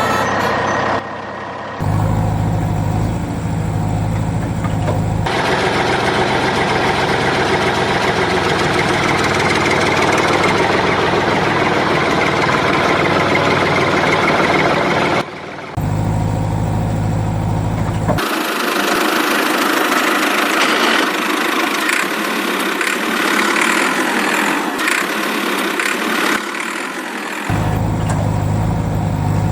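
Heavy-machinery engine sounds in abruptly cut sections: a low, steady engine hum alternating with a denser, noisier working clatter.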